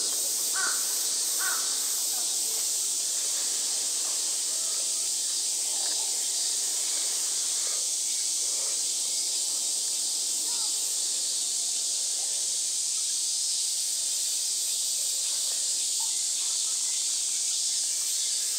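Cicadas droning steadily in a dense, high-pitched hiss.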